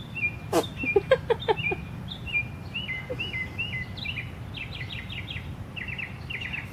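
A songbird singing outdoors, repeating short high phrases several times over, first a stepped, falling figure and then quick rapid-note series. About half a second to two seconds in, a run of short, sharp clicks and knocks close to the microphone is the loudest sound.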